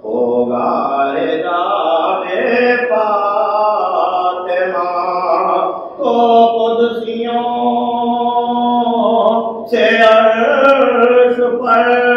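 A man chanting a slow, melodic mourning recitation, holding long notes in drawn-out phrases, with brief pauses for breath about halfway through and again near the end.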